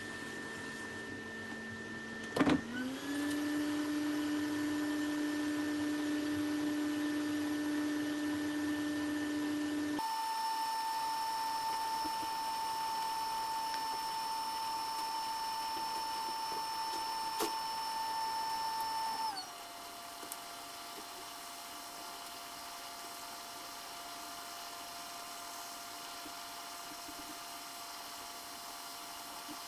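Hot air rework station's blower running with a steady whine during a chip replacement on a laptop logic board. There is a click about two and a half seconds in, after which the pitch shifts. About two-thirds of the way through, the pitch steps down and the sound gets quieter.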